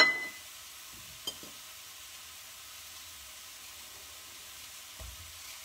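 Diced apples gently sizzling in a frying pan on the stove, a steady soft hiss. Right at the start there is one sharp clack with a brief metallic ring, and a lighter click a little over a second later.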